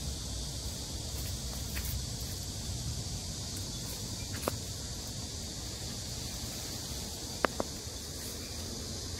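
Steady high-pitched drone of a cicada chorus over a low background rumble, with a few sharp clicks about halfway through and again near the end.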